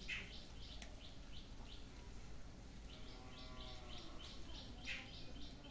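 A small bird chirping in quick runs of short, high notes, one run right at the start and a longer one from about three seconds in, over steady outdoor background noise.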